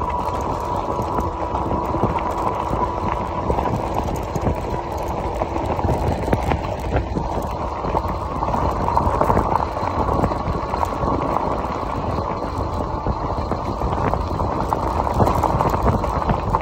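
Voltbike Yukon 750 fat-tire electric bike rolling along a gravel road: steady tire noise over loose gravel with wind on the microphone. A faint steady whine runs through the first few seconds.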